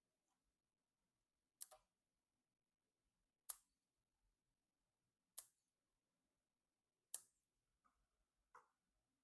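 Four sharp, short clicks about two seconds apart, then a softer one near the end, of small hard parts being handled or snapped into place.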